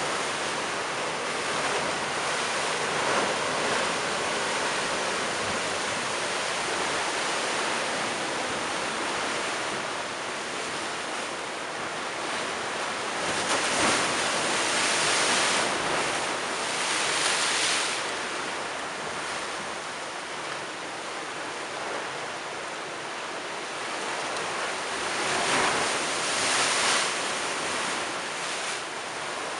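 Storm-surge sea waves breaking against a stone sea wall and steps, a continuous wash of surf that swells louder with the bigger waves about halfway through and again near the end.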